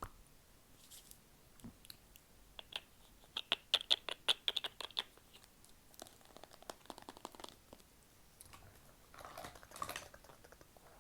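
ASMR mouth sounds close to the microphone: quick wet clicks and smacks, coming in rapid runs about a third of the way in and again past the middle, with a softer rustle near the end.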